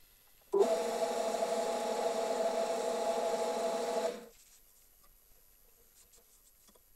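Wood lathe running while sandpaper rubs on the spinning wooden workpiece, a steady hum with a rasping hiss. It starts abruptly about half a second in and stops abruptly after about three and a half seconds.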